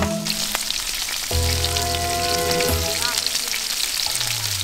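Frenched lamb rack chops sizzling in oil on a griddle: a steady crackling hiss that cuts in suddenly right at the start. Background music with held notes plays underneath.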